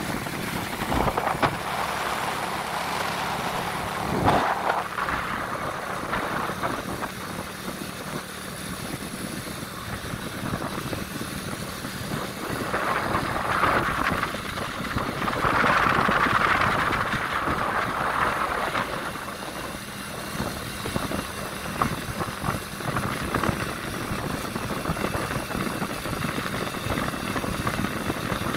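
Steady engine and road noise from a vehicle driving along a road, swelling for a few seconds past the middle.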